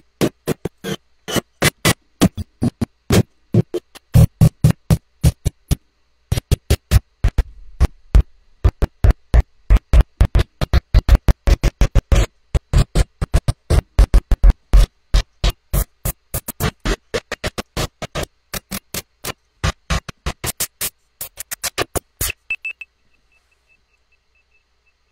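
Electronic intro music: synthesizer over a fast, steady beat of sharp hits, about four a second, which stops abruptly shortly before the end, leaving near silence with a faint high pulsing tone.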